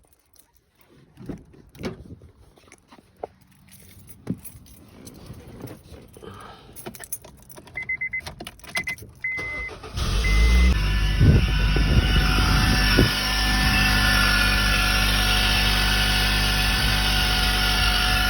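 Clicks and key-handling noises, a few short beeps, then about ten seconds in the 2008 Honda Fit's four-cylinder engine cranks and starts, running higher for a couple of seconds before settling into a steady idle. It is the first start after the VVT oil pressure switch was replaced.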